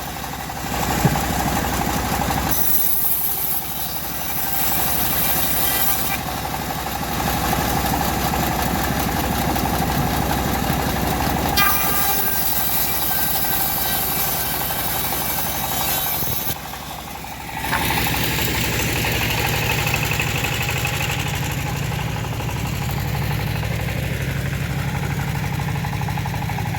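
Motor of a homemade bandsaw mill running steadily, its sound changing abruptly a few times; after a short dip about two-thirds of the way through it runs on with a deeper tone.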